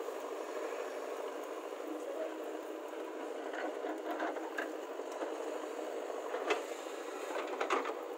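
Heavy machine's engine running steadily, with a sharp knock about six and a half seconds in and a couple more near the end.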